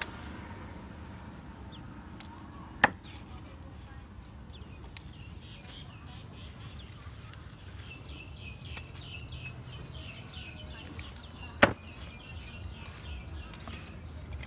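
Two sharp chops of a cleaver on a chopping board, several seconds apart, over low steady background noise. Between them comes a rapid run of high chirps.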